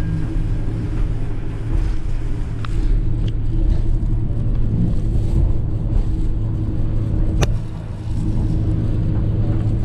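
Airport apron shuttle bus driving, heard from inside the cabin: a steady low engine and road rumble, with one sharp click about seven and a half seconds in.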